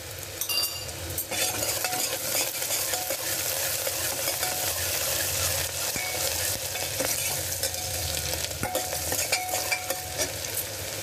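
Chopped onion and grated ginger sizzling steadily in hot oil in a metal pressure cooker, stirred with a steel ladle that scrapes and clicks against the pot.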